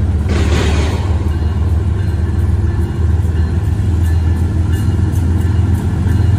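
Diesel locomotive engine giving a steady low rumble as a train approaches, with a brief hiss in the first second.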